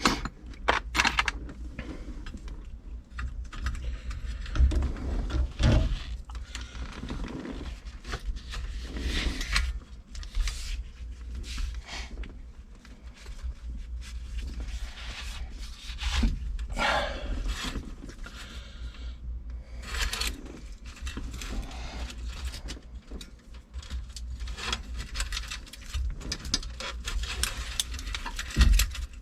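Irregular scraping, rubbing and small clicks of hands and tools working the old turn signal switch and its wiring out of a steering column.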